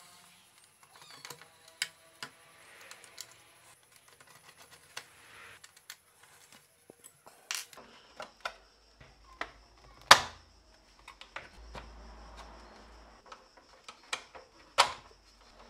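Hard plastic scooter cowl panels being handled and pulled apart: a string of light clicks and knocks, with two sharper knocks about ten seconds in and near the end.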